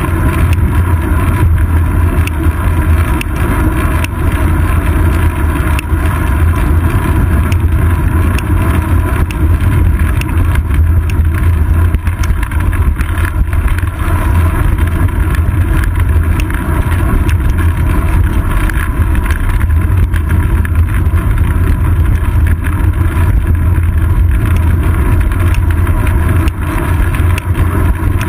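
Steady loud low rumble of wind and road vibration picked up by a GoPro Hero 2 mounted on a bicycle's seat post while riding, with tyre and road noise mixed in.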